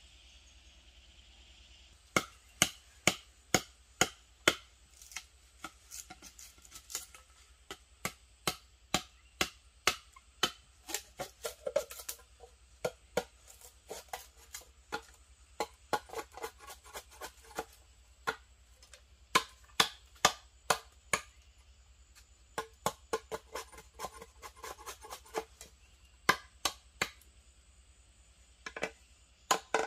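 Repeated chopping strikes, a blade cutting into wood, starting about two seconds in. The strikes come one to two a second, with quicker runs of lighter cuts in between.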